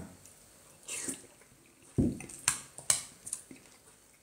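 Metal spoon scooping wet, mashed food from a ceramic bowl: soft scraping and squelching, a dull knock about two seconds in, then a few short clinks of the spoon against the bowl.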